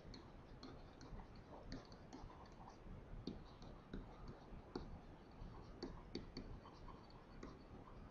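Faint, irregular clicks and taps of a stylus writing on a pen tablet.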